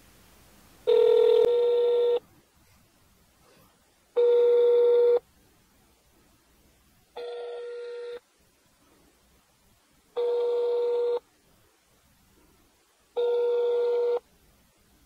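Telephone ringback tone as Google Voice tries to connect the call: five steady rings, each about a second long and about three seconds apart, the third one fainter.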